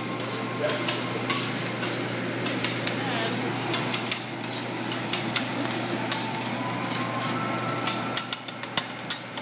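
Rice and egg sizzling on a teppanyaki griddle while metal spatulas scrape and clack against the steel top, with frequent irregular clicks over a steady frying hiss.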